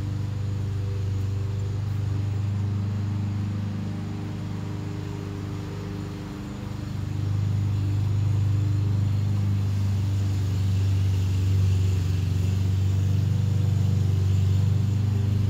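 A steady, low mechanical hum with several even pitches, easing off a little a few seconds in and then swelling louder again about halfway.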